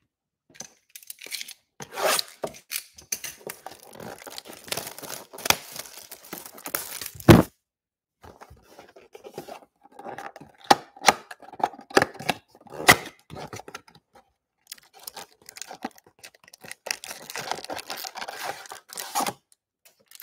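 Plastic shrink wrap being torn and crinkled off a cardboard trading-card box, with a loud knock about seven seconds in. Then cardboard and foil packs are handled, with clicks, rustling and more crinkling.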